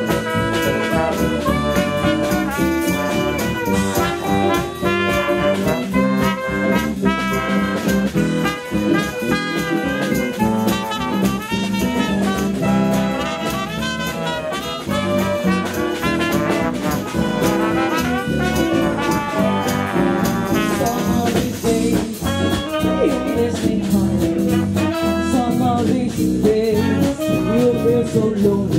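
Live swing band playing an instrumental passage, a horn carrying the melody over guitar, bass and drums.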